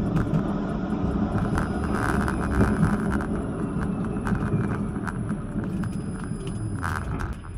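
Vityaz-M low-floor tram running along its track, a steady low rumble with scattered clicks and knocks from the wheels on the rails, played back at double speed.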